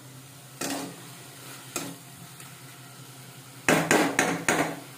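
Flat metal spatula scraping and stirring onion and ginger-garlic paste frying in oil in a metal kadai, over a faint sizzle. Two separate scrapes come first, then a quick run of about five strokes near the end.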